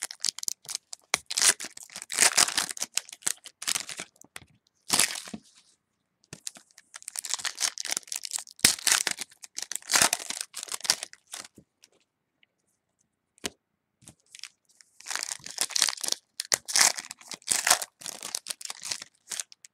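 Football trading card packs being torn open, their wrappers crinkling and tearing in bursts, with a pause of a few seconds past the middle.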